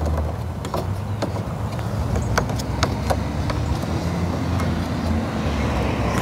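Steady low motor rumble in the background, with scattered light clicks of plastic knobs being threaded onto a lawn mower's folding handle.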